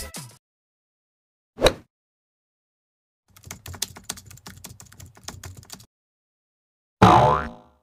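Keyboard typing sound effect: a rapid run of key clicks lasting about two and a half seconds. It is preceded by a single brief swish, and near the end comes a loud transition effect that falls in pitch.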